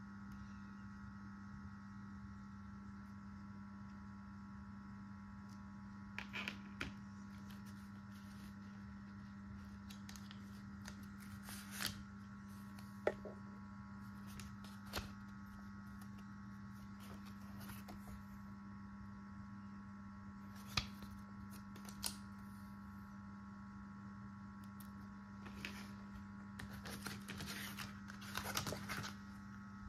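Paper and cardboard packaging handled: a few scattered taps and rustles, with a busier stretch of rustling near the end, over a steady electrical hum.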